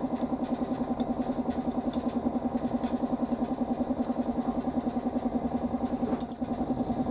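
A small engine idling steadily in the background, with an even, quick pulse. There is a brief click about six seconds in.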